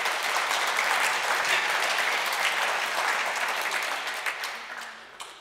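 Audience applauding, a dense patter of many hands clapping that dies away over the last second or so.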